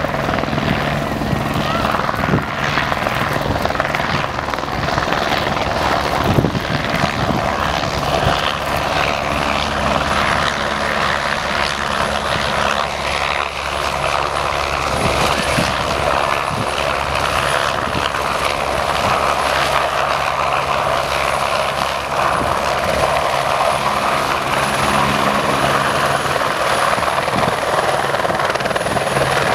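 Helibras AS350B3 Ecureuil helicopter's single turboshaft and main rotor running steadily as it flies low nearby, with a thin high turbine whine over the rotor noise.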